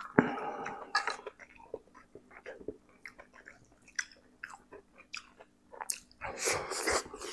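Close-miked mouth sounds of a person eating spicy instant noodles and chili sambal: wet chewing and smacking with many short clicks. Two longer, louder stretches come right at the start and again about six seconds in.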